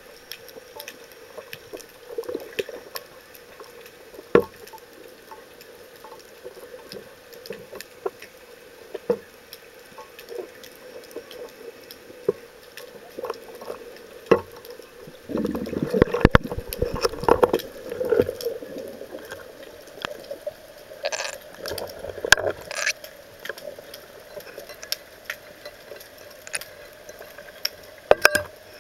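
Underwater sound picked up through a spearfisher's camera: scattered sharp clicks and crackles over a low hum, with louder bursts of water noise about halfway through and again a few seconds later.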